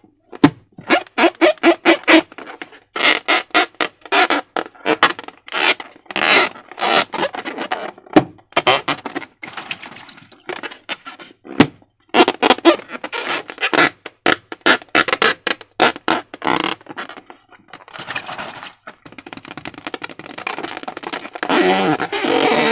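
Slime being squished and worked by hand: a rapid, irregular run of wet squelches and small pops, with a few short pauses.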